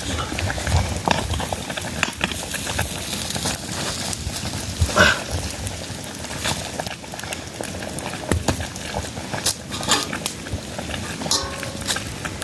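Food sizzling as it fries in a pan, with a utensil stirring and scraping in the pan in irregular clicks and knocks, one louder clank about five seconds in.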